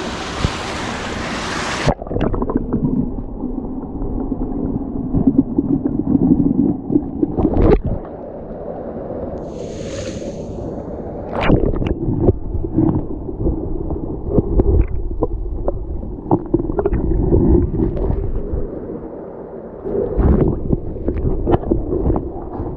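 Creek water heard underwater: a muffled low rumble and gurgle with scattered knocks and clicks. About two seconds in, the bright rush of the stream above the surface cuts off abruptly as the microphone goes under.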